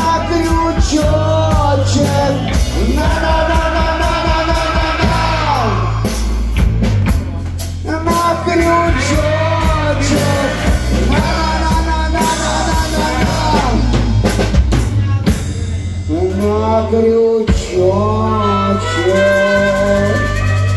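A live rock band playing: electric guitars, bass and a drum kit, with singing and a tambourine, and a harmonica that bends and holds long notes over the band.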